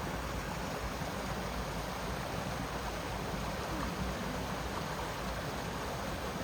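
Small waterfall and creek water rushing with a steady, even noise.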